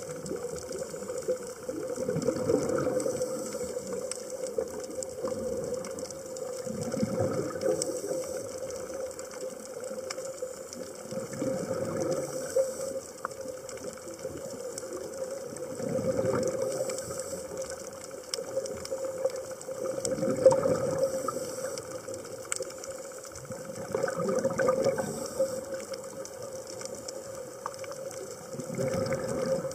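Scuba regulator breathing heard underwater: a rush of exhaled bubbles swells up about every four to five seconds over a steady underwater hiss.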